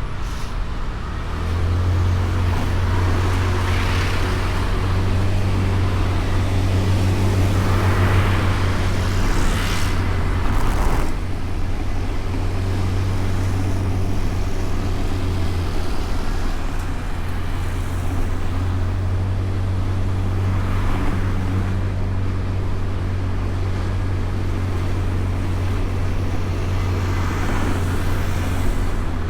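Honda Beat scooter riding through city traffic, heard from a camera mounted on the bike. There is a steady low rumble of engine, wind and road noise, and other vehicles swell past now and then.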